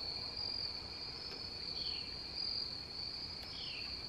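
Steady high-pitched insect chorus, with a couple of short falling chirps about two seconds in and again near the end.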